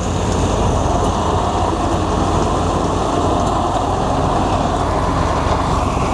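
Engine of a tracked rice-hauling carrier loaded with sacks of rice, running steadily as it crawls out of the field.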